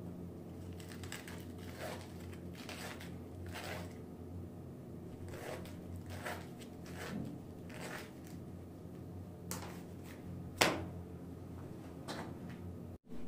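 Small wooden pegs being hand-sanded with a folded perforated sanding disc: short, scratchy rasping strokes about once a second, over a steady low hum. One sharper knock comes late on.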